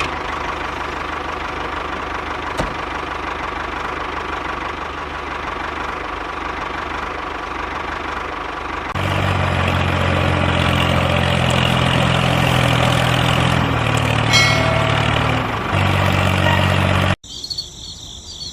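An engine runs steadily, most likely the DIY tractor's, with a deeper, louder throb from about halfway through. Near the end the engine sound cuts off abruptly, leaving quieter background with high insect chirping.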